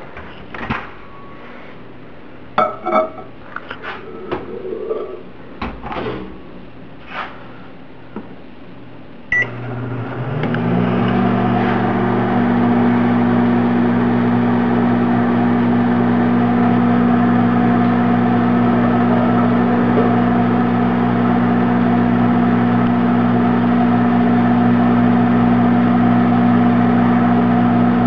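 Scattered knocks and clicks of handling, then a short beep about nine seconds in as a microwave oven starts. It then runs with a steady hum that rises briefly in pitch as it comes up to speed.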